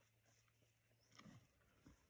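Very faint rustling and a few soft knocks from young Highland cattle at lucerne hay, over a low steady hum.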